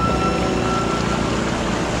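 Water rushing and splashing along a moving kayak's hull, with wind buffeting the microphone.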